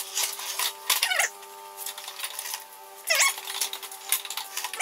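Knocks and clatter of a Honda walk-behind mower being tipped and rolled onto a wooden lift table, with a few short squeaks over a steady hum.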